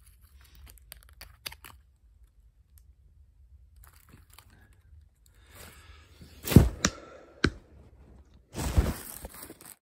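Handling of a small flashing light-up toy ball: scattered light clicks, then three sharp knocks about two-thirds of the way through and a short rustling burst near the end.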